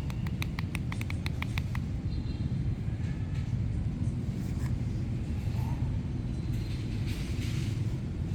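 Steady low rumble of street traffic, with a quick run of about a dozen light ticks or taps in the first two seconds.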